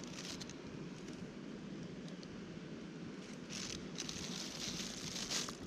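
Thin plastic carrier bag rustling and crinkling as a gloved hand shifts the wet fish inside it, in two spells: briefly at the start and again for the last couple of seconds. A steady low rumble runs underneath.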